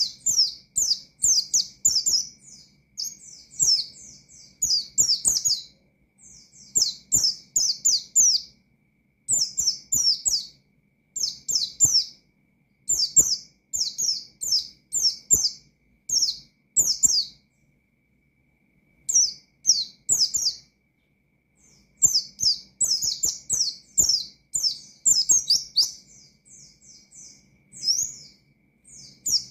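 A white-eye (pleci) singing. It pours out phrases of rapid, high, downward-slurred notes, each phrase one to two seconds long, with short breaks between them and a longer pause a little past the middle.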